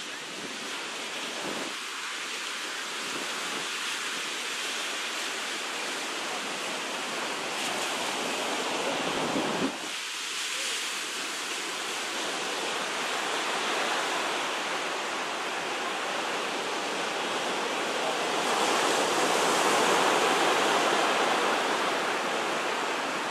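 Ocean surf breaking and washing onto a sandy beach, a steady rush that swells and ebbs with the waves, loudest near the end.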